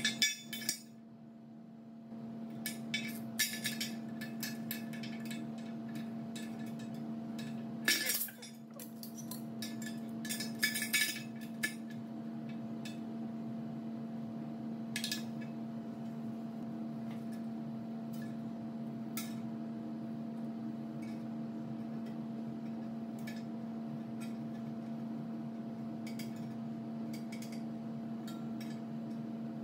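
Steel parts of a home-made gas-torch circle cutter clinking and tapping against a steel tractor wheel rim as they are fitted into its centre hole: scattered metal clinks and knocks, most of them in the first dozen seconds, then only a few. A steady low hum runs underneath.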